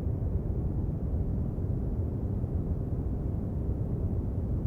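Steady brown noise: an even, deep rushing hiss weighted toward the low end.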